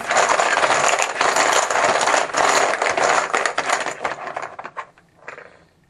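A handful of chips rattling and clattering together as they are mixed to draw one at random. The clatter thins out and dies away near the end.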